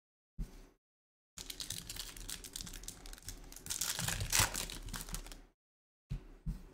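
Foil wrapper of a Topps Chrome Formula 1 trading card pack crinkling and tearing as it is opened by hand, a dense crackle lasting about four seconds, after a brief tap about half a second in.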